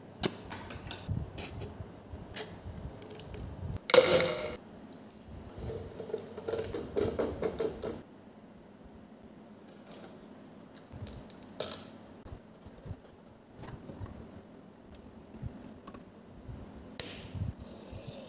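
Scattered clicks, taps and rustles of hands working a plastic bottle and small tools as the bottle is cut with scissors and its strip handled, with one loud rustling crash about four seconds in and a denser patch of rattling between about six and eight seconds.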